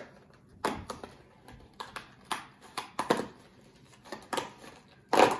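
Small cardboard snack box being opened by hand: irregular crackles and rustles as the flap and packaging are pulled open, the loudest near the end.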